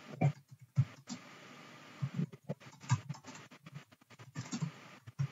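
Typing on a computer keyboard: an irregular run of key taps and clicks.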